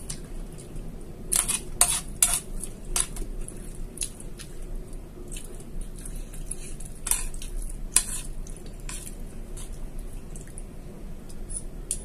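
Metal spoon clinking and scraping against a ceramic plate while eating. The sharp clinks come in two clusters: one a second or two in, and another about seven to nine seconds in.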